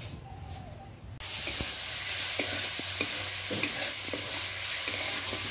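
Chopped leafy greens frying in a kadai with a steady sizzle, a metal spatula clicking and scraping against the pan as they are stirred. The sizzle starts abruptly about a second in.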